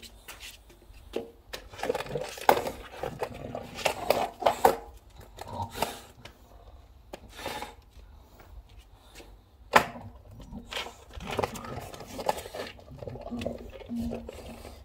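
English bulldog gnawing on a wooden skateboard deck: irregular clicks and scrapes of teeth on the wood, with one sharp knock about ten seconds in.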